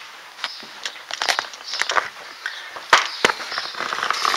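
Irregular sharp clicks and rattles of a beaded strand door curtain being pushed aside, mixed with footsteps. The clicks come in an uneven run and are loudest about three seconds in.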